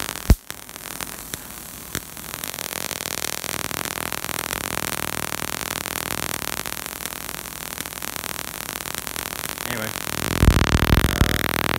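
Steady crackling hiss from a 50,000-volt dual-polarity high-voltage rig, the sound of continual small discharges and arcing breaking over its insulation. There is a single sharp snap just after the start and a burst of low rumbling about ten seconds in.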